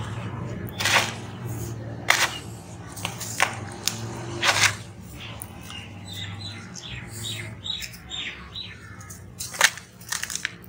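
Dry sand-cement chunks crumbling and crunching in the hands, grit trickling back into a plastic tub, with a handful of sharp crunches, two close together near the end. A bird chirps quickly over and over in the background through the middle, over a steady low hum.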